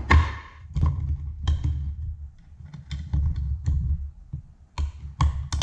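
Irregular metal clicks and taps as a screwdriver pries at a retaining ring on a hoverboard's aluminium central pivot shaft, with dull knocks from the frame being handled on the workbench.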